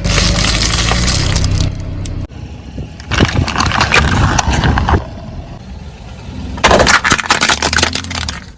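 Crunching and cracking as a car's tyres roll over and crush objects, in three bursts, over the low hum of the car's engine.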